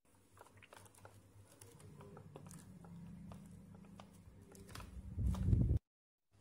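Plastic snack wrapper crinkling and crackling as it is handled, a scatter of sharp little clicks over a steady low hum. A louder low-pitched bump of handling comes near the end, then the sound cuts off suddenly.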